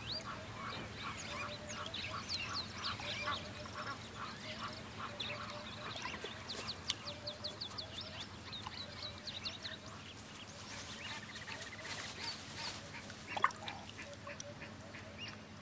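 Several birds calling together: quick runs of short, high chirps over a lower call repeated again and again, with one sharper call near the end.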